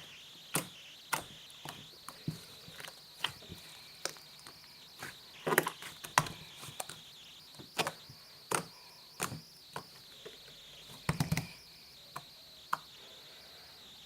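Irregular sharp knocks and clicks, about one or two a second with a few quick clusters, over a steady high-pitched hiss like insects or crickets.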